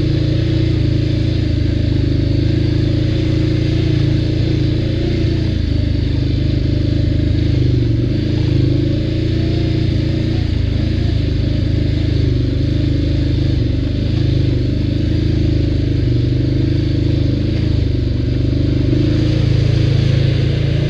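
ATV engine running steadily under way, with small rises and falls in pitch and the rattle of the machine over the trail.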